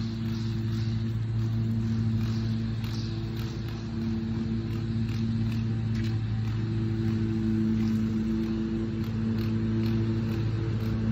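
A motor engine idling steadily, with a few faint light clicks over it.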